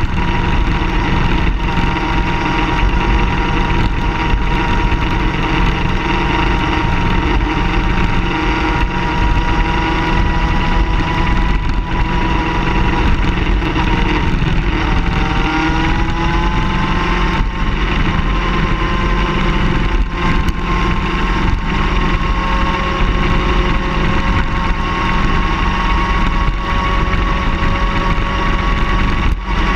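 A car engine running steadily, its pitch shifting and rising briefly about halfway through.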